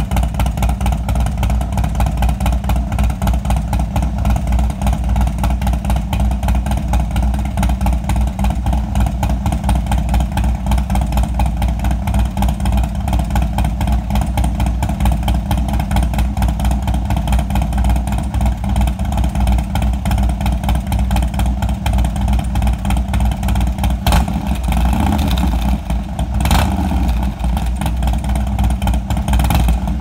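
Harley-Davidson Dyna's V-twin engine idling through a Bassani Road Rage II two-into-one exhaust, a steady, fast, lumpy beat. Two brief louder bursts come near the end.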